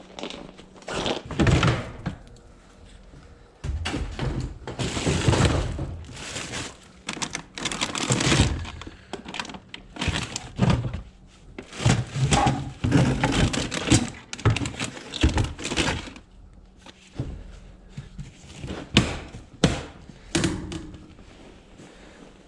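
Objects being handled and moved about while rummaging through boxes: irregular knocks, thuds and scraping and rustling.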